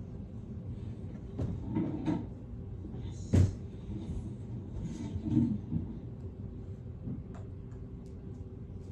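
A single sharp knock about three and a half seconds in, over a steady low hum, with softer bumps and rustles before and after it.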